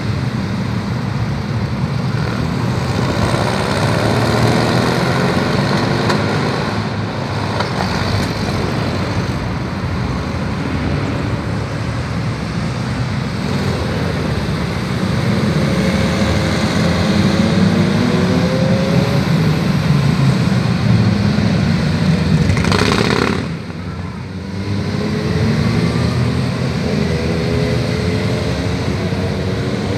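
A stream of motorcycles riding past one after another, their engines overlapping in a continuous drone. The engine notes rise and fall as each bike accelerates through the junction, with a brief lull about three-quarters of the way through.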